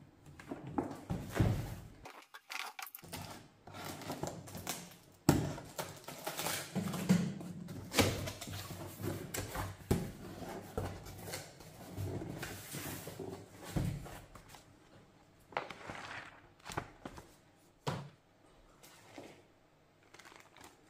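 Cardboard box being handled and opened: irregular scraping and rustling of cardboard with scattered knocks and thumps as the box is turned, its flaps opened and a cardboard insert lifted out.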